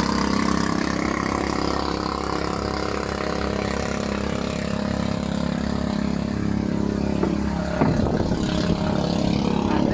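Outrigger boat's engine running steadily at idle, with a brief clatter about eight seconds in.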